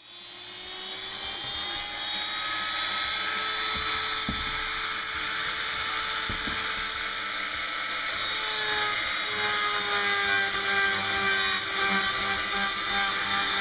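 High-speed rotary drill with a burr grinding away the back of a hardened resin-clay pattern to hollow it out. It spins up at the start, then whines steadily, its pitch wavering slightly as it cuts.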